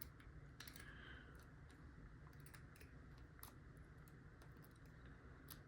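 Faint, scattered metallic clicks, about six at irregular spacing, of a tickler-style lock pick and tension wrench working in the keyway of an inexpensive lock.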